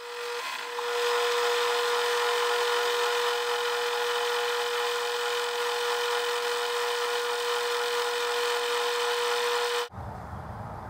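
12-inch Atlas lathe running with a high-speed steel tool turning a brass flywheel, a steady whine over the machine noise. It cuts off abruptly near the end, leaving a low hum.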